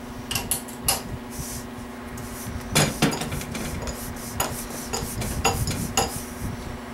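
Irregular metallic clinks and taps of a hand tool and small parts against an MG 1275 engine block, about a dozen sharp strikes, the loudest about three seconds in.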